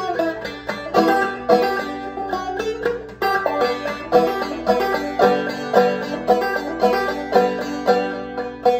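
Open-back banjo played clawhammer style: a steady, driving rhythm of plucked and brushed notes, solo.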